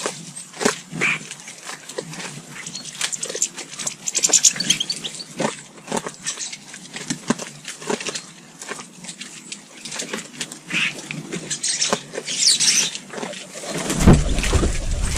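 Garden birds at a feeder calling and chattering, with many short clicks and taps and brief high chirps. A low rumble comes in near the end.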